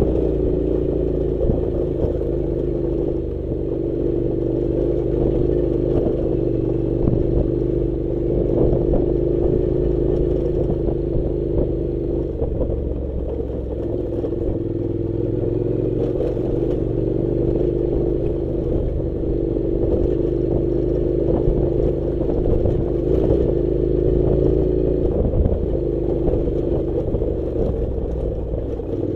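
Honda NC700 motorcycle's parallel-twin engine running steadily at low speed while riding a rough dirt track. The engine note dips and picks up a little a couple of times, with light knocks and rattles from the bike over stones.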